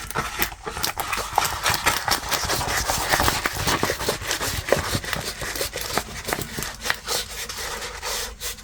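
Packaging of a diamond painting kit being handled, rustling and crinkling with many small crackles and rubs.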